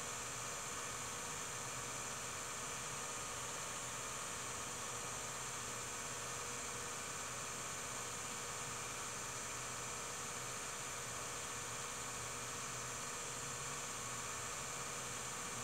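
Steady hiss with a low electrical hum and no other sound: the empty sound track of an old home-movie transfer.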